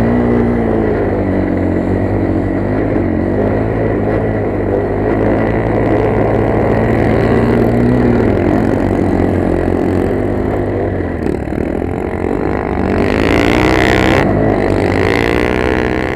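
Motoland XR 250 enduro motorcycle's single-cylinder four-stroke engine running under load in snow, its revs rising and falling as the rider works the throttle. A rushing hiss comes in about 13 seconds in, and the revs climb again near the end.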